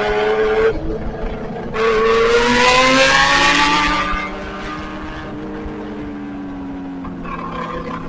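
Kawasaki inline-four sport motorcycle engine on the road: after a brief dip it revs up hard through the gear with rising pitch and rushing wind for about two seconds, then settles to a lower, steady cruise.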